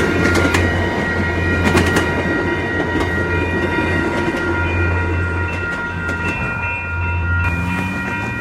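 An MBTA train running past at close range: a steady low rumble with scattered clicks of the wheels over rail joints, and thin steady high tones over it. The high end thins out about seven and a half seconds in.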